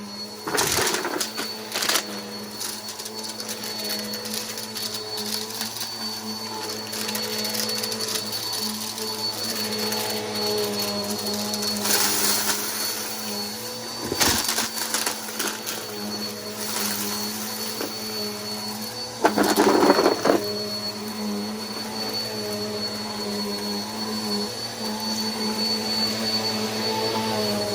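Bissell PowerForce Helix bagless upright vacuum cleaner running steadily with a high motor whine, broken by a few short louder rushes of noise, the longest about twenty seconds in.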